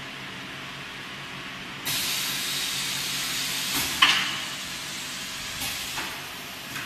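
High-frequency blister cutting machine working through a cycle: a steady low hum, then about two seconds in a loud hiss starts suddenly and runs for about two seconds. It ends in a sharp, ringing metallic clack from the press about four seconds in, followed by softer hisses and clicks.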